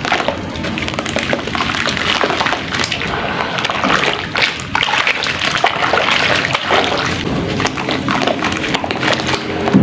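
Soft sand-and-cement mix being crumbled and dipped into water: continuous wet sloshing and splashing, with many small crackles of the mix breaking apart.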